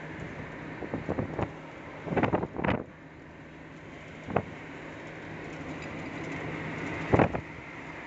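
Cabin noise of a vehicle cruising on a highway: a steady low engine hum over road and wind noise. Several short thumps break through it, the loudest a little after two seconds in and again about seven seconds in.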